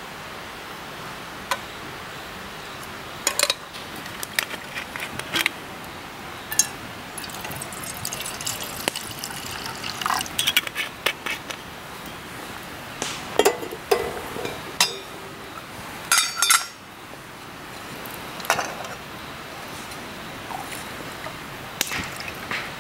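Metal cookware clinking and knocking: pot lid, tofu bowl and a titanium cup handled in turn, with hot dashi broth poured from the pot into the cup of sake. Short clinks come every second or two, with the loudest clatter about two thirds of the way through, over a steady background hiss.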